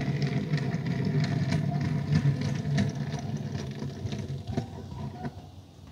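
Small die-cast toy car rolled by hand across a plastic tabletop, its wheels giving a steady low rumble that fades about four and a half seconds in, with a few light clicks.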